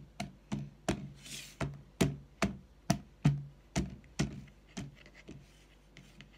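A fork pricking raw pie crust in a pie dish: sharp taps of the tines, about two and a half a second, stopping about four seconds in, with a few fainter taps after. The crust is being docked so steam can escape and it won't bubble up in the oven.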